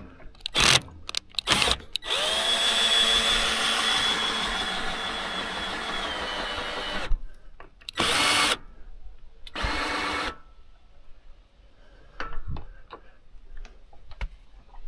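Small electric motor whirring in stop-start runs as it drives a retractable awning out: a few short bursts, then one long run of about five seconds whose pitch sags near its end, then two more short bursts.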